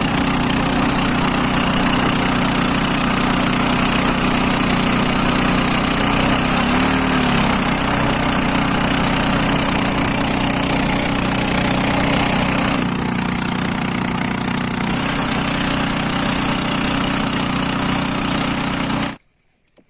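An engine running steadily, its pitch dipping briefly about seven seconds in. The sound cuts off abruptly about a second before the end.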